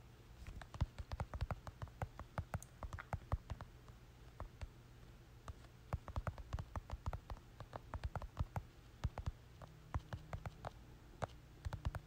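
Typing on a phone's touchscreen: quick, irregular runs of small taps and clicks, with a short lull about four seconds in.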